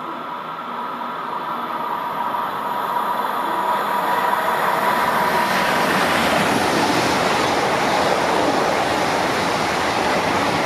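A Deutsche Bahn ICE high-speed train approaching and passing through the station at speed. A thin whine from the rails gives way to a steady rush of wheels on track and air, which builds over the first four seconds and then stays loud.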